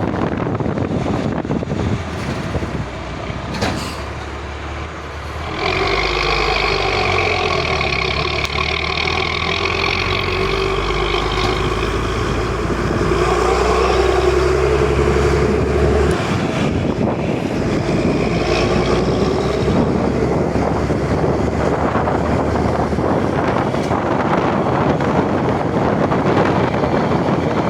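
Volvo B10M bus's diesel engine running. From about six seconds in, for some ten seconds, a steady low drone with a whine on top stands out, then it goes back to a rougher, noisier running.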